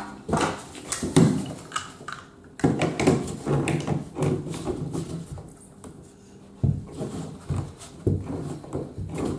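Pliers clicking and scraping on a metal bathtub drain flange as it is gripped and twisted, in a run of irregular knocks and grinding scrapes.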